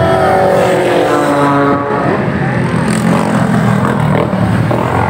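Motor vehicle engines passing close by on a road. One engine's pitch falls as it goes past over the first two seconds, then a steady lower engine hum follows.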